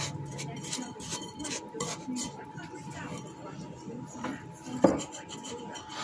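A metal mould scrapes and clinks against a glass mixing bowl while damp, crumbly baking soda and citric acid mix is scooped and packed into it, giving a run of short gritty scrapes. One sharper, louder clink comes just before five seconds in.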